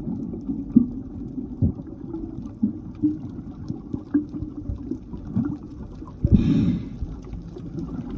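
Underwater sound picked up by a submerged camera: a low, muffled rumble of moving water with scattered soft pops and knocks, and a louder hissing burst about six seconds in.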